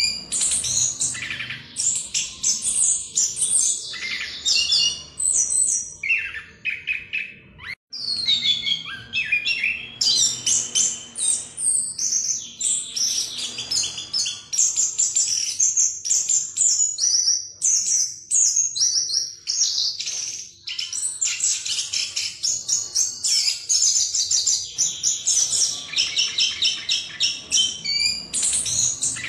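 Chestnut-backed thrush (anis kembang) singing a long, fast rolling song in the 'ngerol' style: rapid high notes run together almost without a break. A moment's silence about eight seconds in interrupts it.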